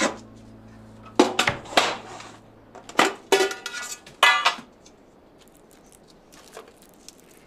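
A metal tin of wrapped chocolates handled on a worktop: a run of sharp metallic knocks and clinks over the first four and a half seconds, one of them ringing briefly, then faint small rustles and ticks as fingers pick through the foil-wrapped sweets.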